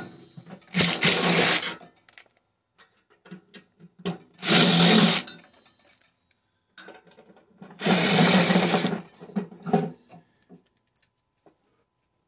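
Power drill/driver running in three short bursts of about a second each, with small clicks and handling noises between them.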